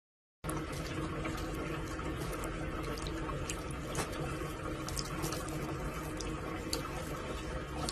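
Bathroom tap running, starting about half a second in, its stream pouring over a cat's head and splashing into the sink. A steady splashing with scattered small drips and splashes.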